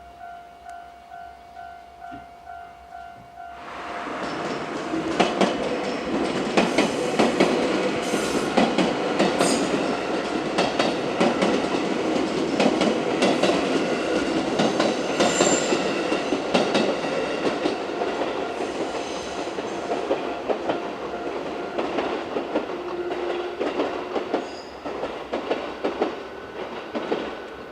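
Level-crossing warning bell ringing about twice a second. About four seconds in, a 221 series six-car electric train passes through the crossing, loud for some twenty seconds, its wheels clicking over the rail joints, before it fades near the end.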